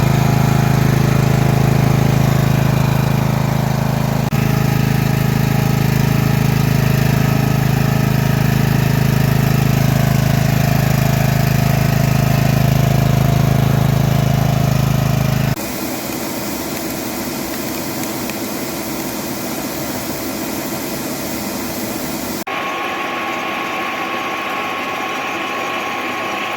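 Homemade mini excavator's small engine running steadily with a deep hum. The sound changes abruptly twice, turning quieter and thinner about two thirds of the way through, and a steady high whine joins in near the end.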